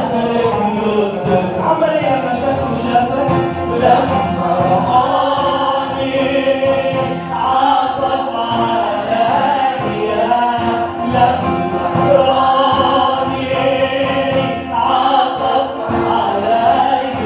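Christian hymn: a choir singing over instrumental accompaniment.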